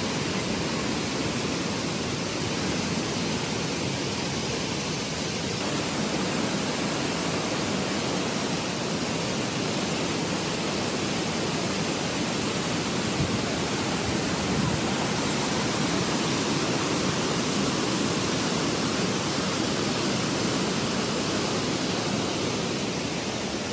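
Waterfall on Vickery Creek: falling water making a steady, unbroken rush.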